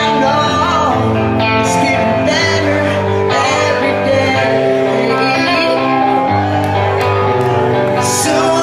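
Live hard rock band playing: distorted electric guitars, bass and drums, with a male singer's voice over them.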